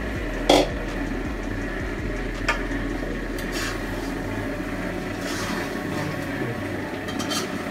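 A metal spatula knocking and scraping in a pan of frying curry. There is one sharp knock about half a second in and lighter clinks later, over a steady rushing background noise.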